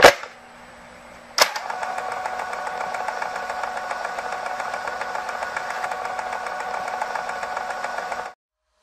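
Quadcopter drone's electric motors running steadily, a whine made of several tones with a fine rapid ticking, starting with a click about a second and a half in and cutting off suddenly near the end.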